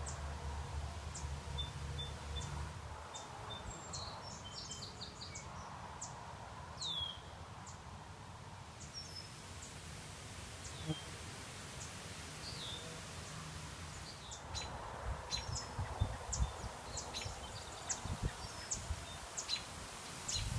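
Small birds chirping, with scattered short high calls and a few falling whistled notes, over a steady outdoor hiss. A low rumble runs through the first few seconds, and low thumps come more and more often near the end.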